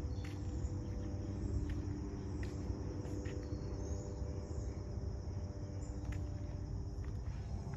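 Outdoor ambience while walking on a sidewalk: a steady high chirring of insects over a low rumble, with a few faint footsteps.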